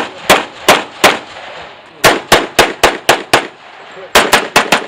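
Pistol fired in rapid strings during a practical shooting stage: three shots, then after about a second a quick run of six, then after a short pause four more in fast succession.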